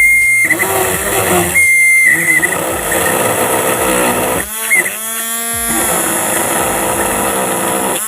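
Small electric motor running with a buzzing whine whose pitch glides down and back up as it slows and speeds up, then holds steady.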